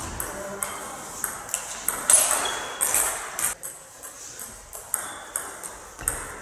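Celluloid-type table tennis ball being hit back and forth, sharp ticks off bats and table in a fast rally, then a short lull and a few more hits near the end as the next point starts.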